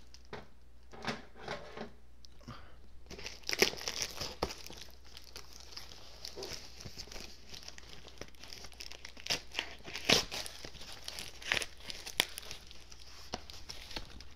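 A cardboard shipping box being torn open by hand: irregular ripping and crinkling of its flaps and tape, with sharper rips about three and a half seconds in and about ten seconds in.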